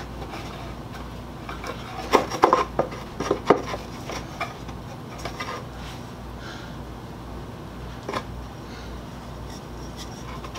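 Rough pallet-wood boards knocking and rubbing against each other as a small floor piece is lifted out of and fitted back into a wooden birdhouse compartment by hand. There is a quick cluster of wooden knocks about two to three and a half seconds in and a few lighter taps later, over a low steady hum.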